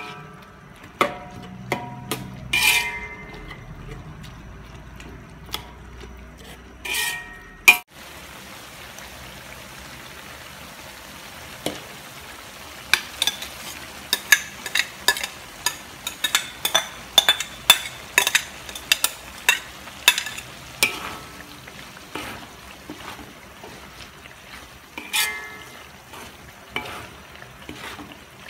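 Metal spatula scraping and knocking against a metal wok as ground pork and diced vegetables fry with a steady sizzle. There are a few ringing clangs in the first few seconds and again about seven seconds in, then a long run of quick scraping clicks as the mixture is stirred.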